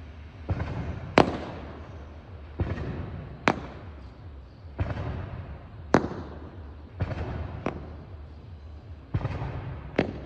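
Aerial firework shells bursting in a steady series, about ten reports: duller booms each followed within a second by a sharp crack, with crackling hiss from the burning effects in between.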